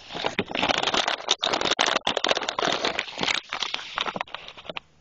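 Dense crackling and rustling with many sharp clicks, made right at a phone's microphone as a cat's fur and face brush against the phone. It thins out just before the end.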